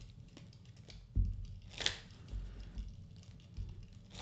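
Hands shuffling a deck of oracle cards: soft swishes of sliding cards and a few light thumps of the deck being handled.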